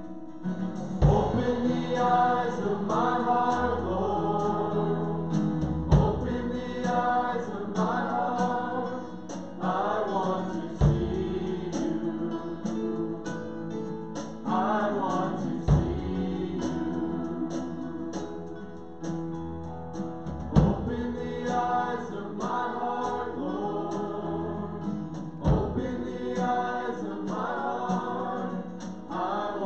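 A worship song: a group of voices singing a slow gospel-style hymn with instrumental backing, a deep drum or bass hit falling about every five seconds.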